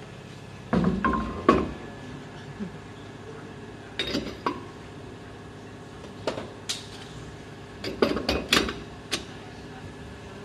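Hard objects clinking and knocking in short clusters, some with a brief ring: a few strikes about a second in, then more around four seconds in, after six seconds, and a quick run near the end.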